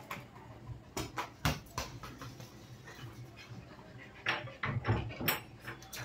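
Light thuds and taps of a small football being nudged and bounced along concrete by a playing dog. A few knocks come early, then a quicker run of them near the end.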